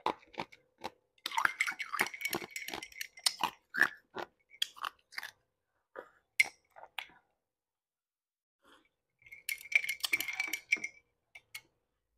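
Ice cubes crunched between the teeth, spooned one by one from a glass of iced drink. A long run of crisp crunching is followed by scattered crackles, a pause, and another burst of crunching about nine seconds in.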